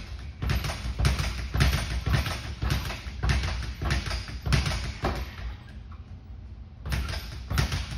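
Speed bag being punched, the bag hitting against its wall-mounted platform in a loose, uneven rhythm of about two to three hits a second. The hitting stops for about a second and a half, then a few more hits come near the end.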